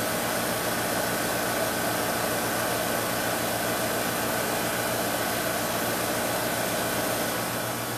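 Rheem 3-ton R-410A 13 SEER condenser running normally: a steady rush of air from the condenser fan over a low, even compressor hum.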